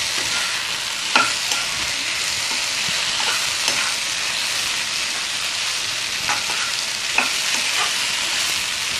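Fried chicken pieces sizzling in a hot non-stick wok with sauces and spring onions, a steady hiss. A metal spatula tosses them, scraping and tapping the pan now and then.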